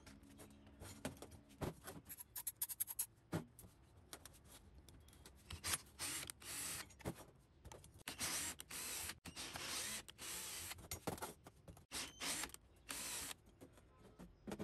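Cordless drill running in repeated short bursts, driving an M5 tap into pre-drilled holes in a steel tube through a wooden tapping guide. Scattered clicks and knocks from setting the jig in place come first.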